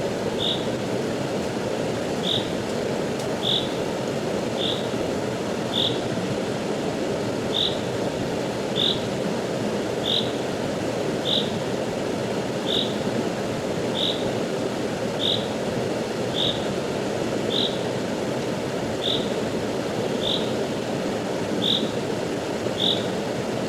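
Steady rushing of a river, with a short high chirp repeating about every second and a bit throughout.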